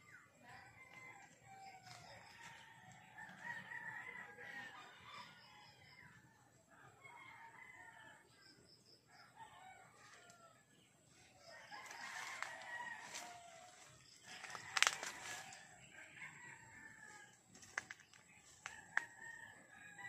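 Roosters crowing again and again, their drawn-out calls overlapping, with small groups of short high peeps now and then. A few sharp clicks stand out past the middle.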